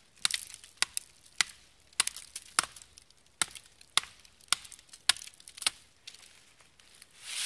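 Credit-card axe blade lashed to a softwood stick with zip ties, chopping into a thin sapling trunk: about ten sharp wooden chops, a little under two a second, stopping about six seconds in. Near the end a rustling in dry leaf litter rises.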